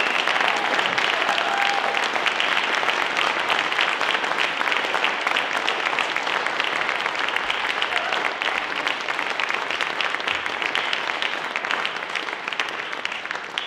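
Audience applauding steadily, the clapping slowly thinning toward the end.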